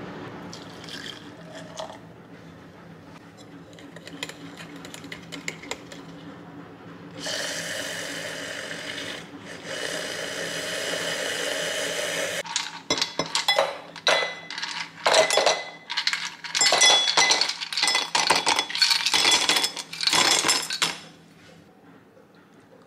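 Kitchen work with glass and metal ware: a steady hiss for about five seconds starting about seven seconds in, then about eight seconds of quick, loud clinking and clattering.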